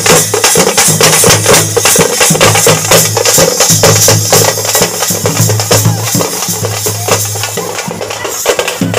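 Loud, fast drum-led festival music: dense rapid drum strokes over a steady held low tone.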